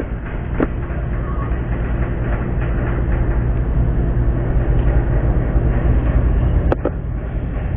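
A steady low rumble, with two short sharp clicks, one under a second in and one near the end.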